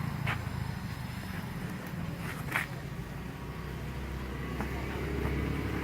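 Low, steady rumble of a motor vehicle that grows louder over the last couple of seconds, with a few short, sharp clicks or slaps near the start and in the middle.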